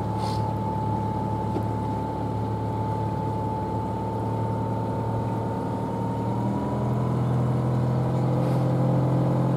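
Small sightseeing boat's engine running steadily at low cruising speed, pushing the boat along the canal. Its note rises slightly and grows a little louder about seven seconds in.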